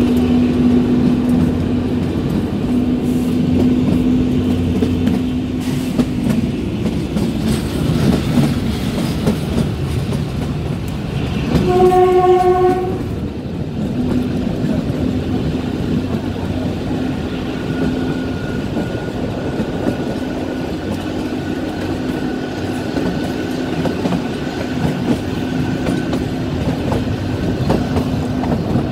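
Narrow-gauge 2 ft 6 in train running, with a steady drone and the clatter of the wheels on the rails. About twelve seconds in, the train's horn sounds once for about a second, the loudest sound here.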